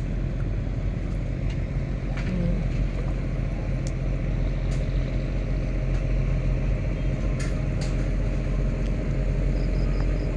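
A river ferry's engine running steadily, a constant low drone with no change in pace.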